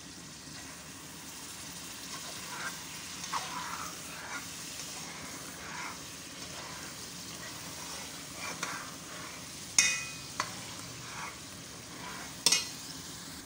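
Egusi cooking in tomato paste sizzles steadily in a metal pot while a metal spoon stirs and scrapes through it. Twice near the end, the spoon knocks sharply against the pot.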